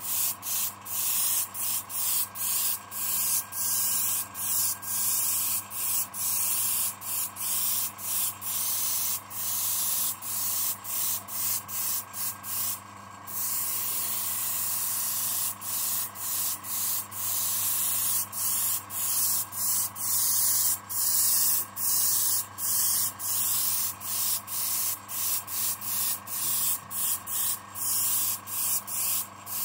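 Airbrush spraying paint in short hissing bursts, the air cutting off briefly about one to two times a second as the trigger is let go. Near thirteen seconds it stops for a moment, then sprays unbroken for about two seconds. An air compressor hums steadily underneath.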